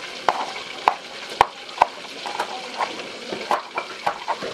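Kitchen work at the stove: a run of sharp, irregular clinks and knocks of a utensil against cookware, a few ringing briefly, over a steady hiss like food sizzling in a pan.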